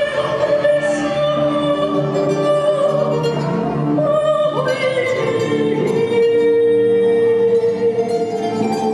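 Music with a singing voice holding long notes, one note held steady for several seconds in the second half.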